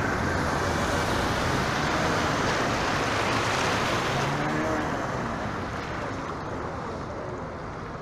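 Bus wading through deep floodwater, its wheels churning up a loud rushing splash of water over the engine's run. The rush fades about halfway through as the bus moves past.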